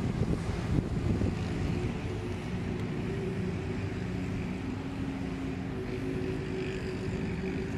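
A steady low engine drone, several held hums that drift slightly in pitch.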